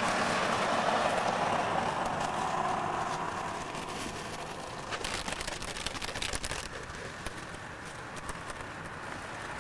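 A car driving past, its road noise fading over the first three seconds. About five seconds in, a couple of seconds of sharp crackling clicks.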